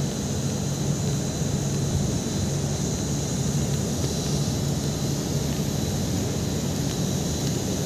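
Steady low engine hum and rumble of a slowly moving vehicle, heard from on board, with a faint steady high-pitched whine above it.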